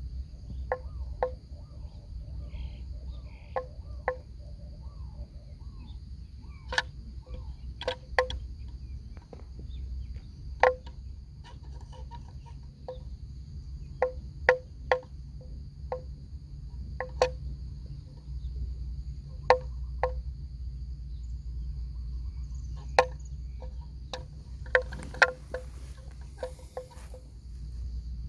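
Steady high-pitched insect drone over a low rumble, with sharp irregular clicks every second or two.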